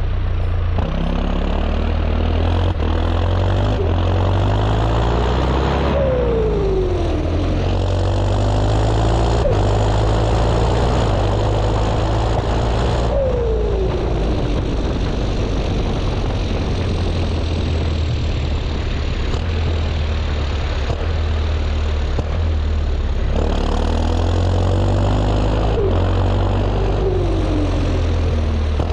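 Chipped John Deere 6230 tractor's turbo-diesel engine running steadily as the tractor drives along. Several times there is a falling whine lasting about a second and a half: about six seconds in, about thirteen seconds in, and twice more near the end.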